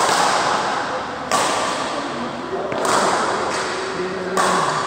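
Badminton rally: racket strikes on a shuttlecock, four sudden hits about a second and a half apart, each ringing on in the echo of a large sports hall.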